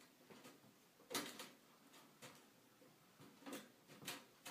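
Faint scraping and clicking of the RAIDMAX Blade case's bottom mesh dust filter being slid and pressed back into place on the bottom panel, a few short noises with the strongest about a second in.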